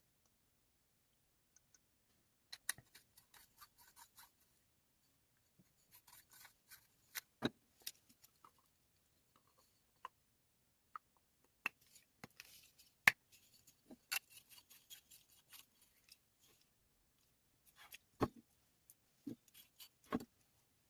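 Irregular small clicks, taps and short scrapes of hand work on small parts, with a few sharper knocks among them.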